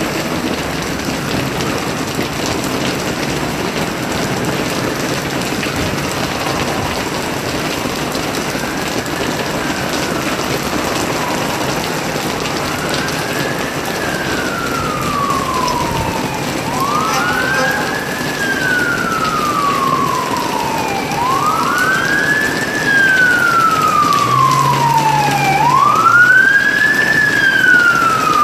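An emergency vehicle's wail siren sounds over steady rain, rising quickly and falling slowly about every four and a half seconds. It starts faint and grows louder toward the end as it approaches.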